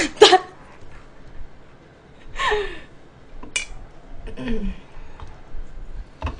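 A woman's short wordless vocal sounds: a breathy exclamation at the start, a falling sigh-like murmur a couple of seconds in and a lower murmur later. Between them come a few sharp clicks of utensils.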